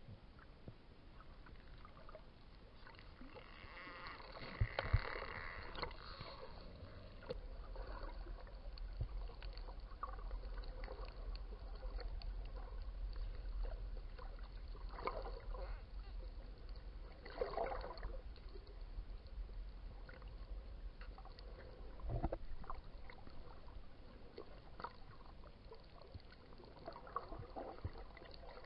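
Underwater recording of dolphins: scattered sharp clicks and several short buzzing pulse bursts over a background of water noise. A steady low hum comes in about seven seconds in.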